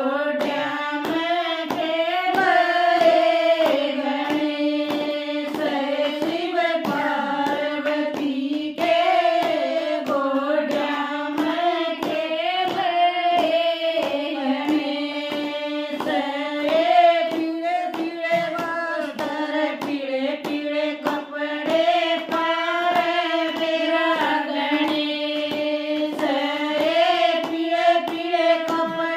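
Women singing a Hindu devotional bhajan together without instruments, kept in time by a steady beat of hand claps.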